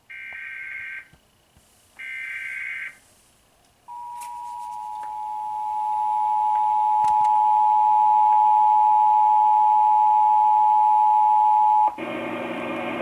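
Emergency Alert System alert: two bursts of SAME digital header data, about a second each, encoding a Child Abduction Emergency. Then comes the EAS two-tone attention signal, a steady dual-tone alarm held for about eight seconds that grows louder over its first few seconds. It cuts off abruptly and broadcast audio begins near the end.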